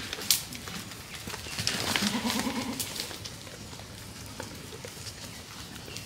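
A goat bleats once, a call of under a second about two seconds in, among scattered clicks and light rustling.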